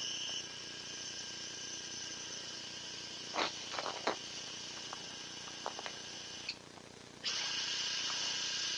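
Powered surgical drill turning a cannulated reamer into the femur to cut the ACL graft tunnel, running steadily with a high-pitched whine. It cuts out for under a second about six and a half seconds in, then starts again. A few faint clicks come between three and four seconds in.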